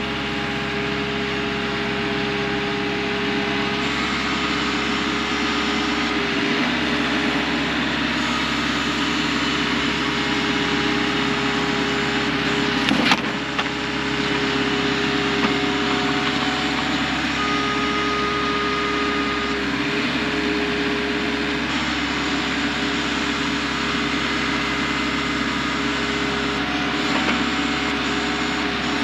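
Excavator's diesel engine running steadily while digging, with one sharp knock about halfway through.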